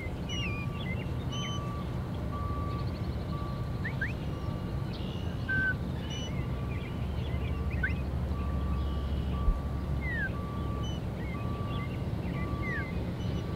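Wild birds singing and chirping over a steady low outdoor rumble, with an evenly repeated single note running throughout. There is one short low bump about two-thirds of the way in.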